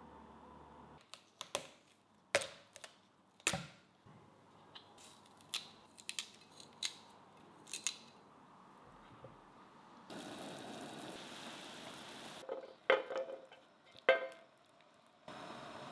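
A small knife cutting and snapping fresh Er'Cai (mustard green) stems over a wooden board, about a dozen crisp cuts spaced irregularly. Later comes a stretch of steady watery hiss and a few loud knocks as the vegetables are tipped off a plate into a pot of water.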